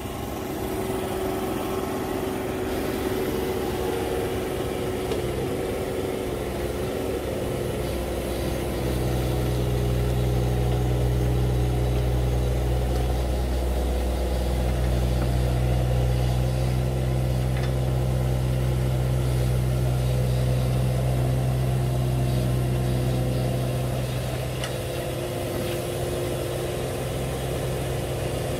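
Kubota mini excavator's diesel engine running steadily while the machine works its boom and blade to climb up onto a trailer bed. The engine grows louder about a third of the way in, dips briefly, holds and then eases off near the end.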